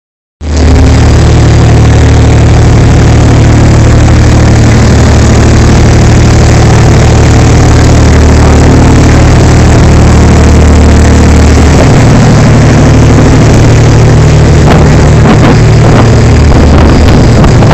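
Motorboat engine running steadily at cruising speed, loud and close, with the rush of water from the wake under it.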